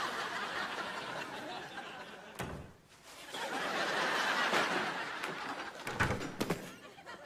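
Sitcom studio audience laughing. The laughter dies away about two and a half seconds in and swells up again. A few sharp thumps come near the end.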